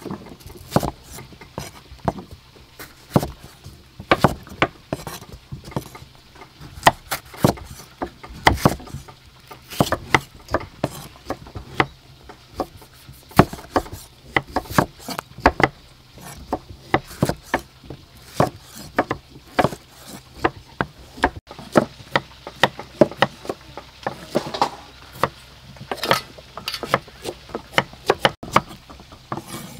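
Kitchen knife chopping tomatoes on a thick wooden chopping board: an irregular run of sharp knocks as the blade strikes the wood, a couple to several a second.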